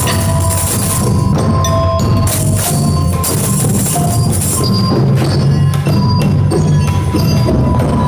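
A group of hand drums, djembes among them, beaten together in a steady groove, with bell-like metallic notes ringing over the top.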